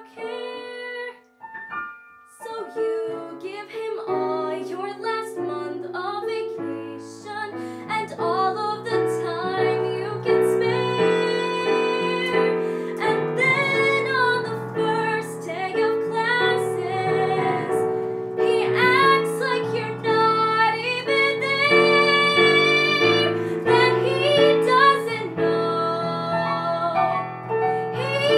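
A girl singing a musical-theatre ballad over piano accompaniment. It starts sparse and grows fuller and louder about eight seconds in, with long held notes.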